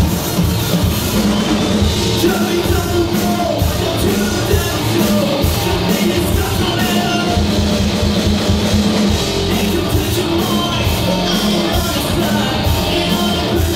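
Rock band playing live through a PA: a singer on a handheld microphone over electric guitars, bass, keyboard and a drum kit, loud and continuous.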